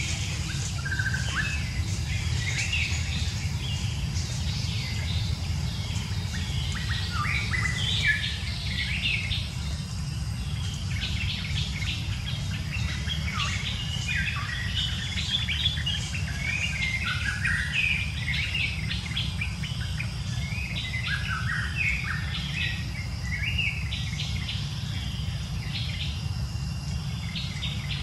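Birds chirping and calling all through, many short quick chirps and glides, over a steady low rumble.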